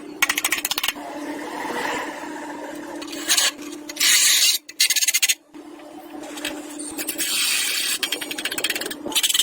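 Hand tool rasping and scraping in several short bursts of quick strokes, like filing or sanding, over a steady low hum.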